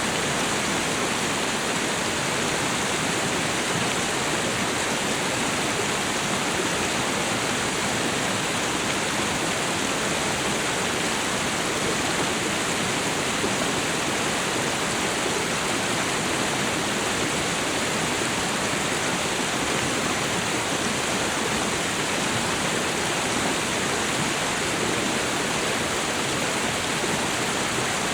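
Waterfall and river water rushing in a steady, even roar. The sound does not change and has no splashes or other events standing out.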